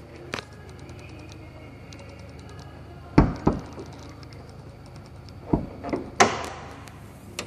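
Short knocks and clunks from the bonnet of a 2014 Jeep Grand Cherokee being unlatched and lifted: a pair of knocks a little before halfway, two more a couple of seconds later, then a sharper metallic clatter near the end.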